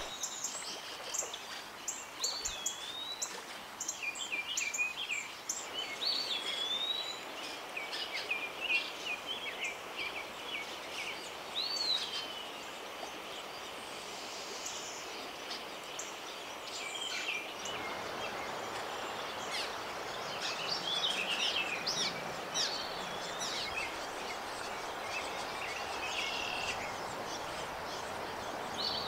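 Birds chirping and calling in quick, varied notes over the steady rush of a stream; the water noise grows louder about two-thirds of the way through.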